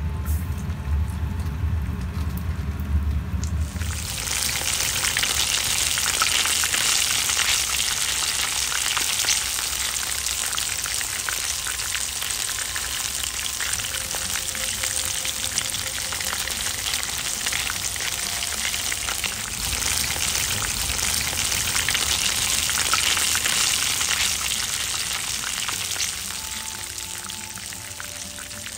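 Potato-starch-coated chicken pieces (karaage) shallow-frying in 170–180 °C oil in a frying pan: a steady, dense sizzle full of fine crackles that eases slightly near the end. A low rumble runs under it for the first few seconds.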